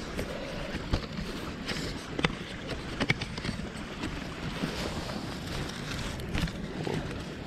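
Wind buffeting the microphone with a low rumble, under a few sharp clicks and light clatter as a small camping-stove windscreen is handled and set up on the ground.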